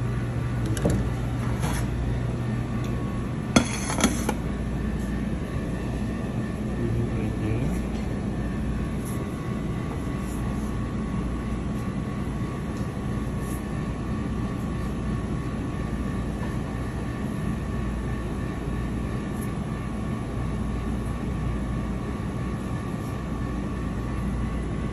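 Steady low mechanical hum of kitchen background machinery, with a couple of faint steady tones over it. Two sharp taps come about three and a half and four seconds in, the loudest moments.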